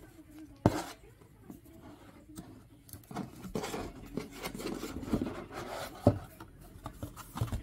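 Objects being handled at close range: rustling, with a sharp knock a little under a second in and another about six seconds in.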